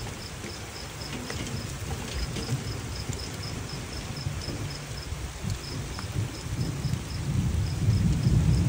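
Thunderstorm: rain falling steadily while thunder rumbles low, the rumble swelling louder near the end. Insects chirp in short, high, evenly spaced calls throughout.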